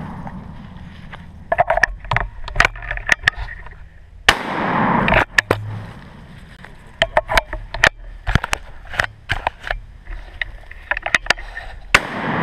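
Two sawed-off shotgun blasts about eight seconds apart, the second near the end, each followed by a short echoing tail. Between them come scattered clicks and rustles of the gun being handled and of steps in dry leaves.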